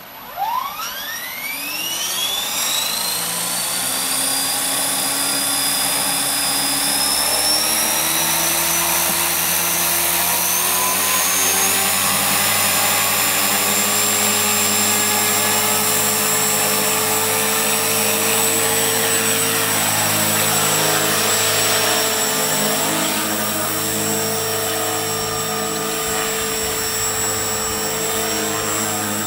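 Align T-Rex 450 electric RC helicopter spooling up, its whine rising steeply over the first few seconds, then running steadily at flying speed with small shifts in pitch.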